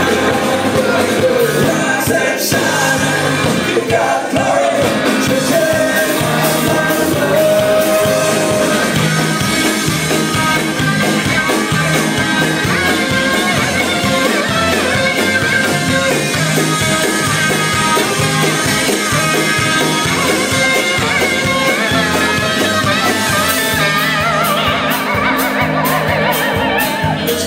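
Live alt-country band playing through a club PA: upright bass, banjo, electric guitar and drums, with a voice singing over them.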